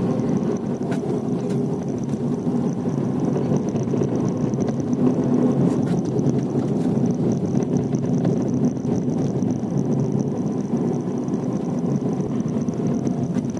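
Steady road and tyre noise with the engine's hum heard inside the cabin of a Tata Tiago hatchback driving on a tar road, windows closed, with a few faint knocks as the car goes over potholes.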